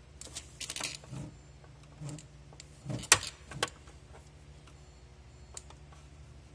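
Scattered clicks and rattles of a screwdriver and wires being handled in a hot tub's control pack while the cord's connections are loosened and pulled out, with one sharp click about three seconds in.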